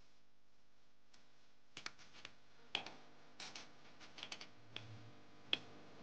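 Scattered, irregular light clicks and taps from hands and tools working at the front driveshaft's transfer-case bolts under a Jeep Wrangler JL.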